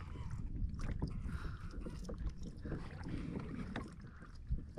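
Wind buffeting the microphone over water lapping at a kayak hull, with scattered small knocks and clicks from hands unhooking a small fish.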